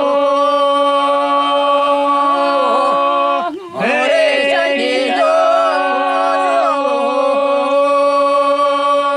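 Small group of voices singing unaccompanied: one voice holds a steady drone note beneath a wavering, ornamented melody. The singing breaks briefly for a breath about three and a half seconds in.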